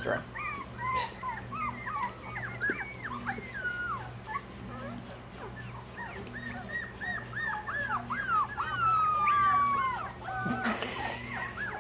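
A litter of young Australian Shepherd puppies whining and crying: many short, high-pitched whines, often overlapping, with one longer falling whine near the end. They are fussing for more food right after being fed.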